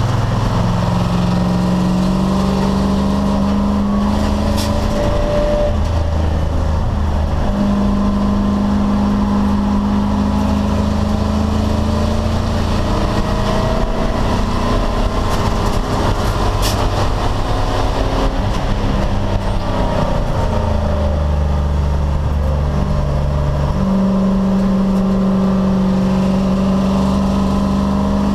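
American Sedan class race car's V8 engine running continuously at a steady loudness, its pitch holding for a few seconds at a time and then shifting up or down several times as the revs change.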